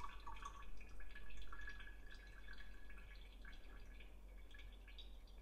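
Faint kitchen handling sounds: light scattered taps and drips, a little more at the start.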